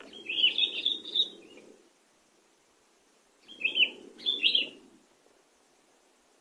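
Sooty-headed bulbul (kutilang) singing two short bursts of quick whistled notes, one at the start and another about three and a half seconds in.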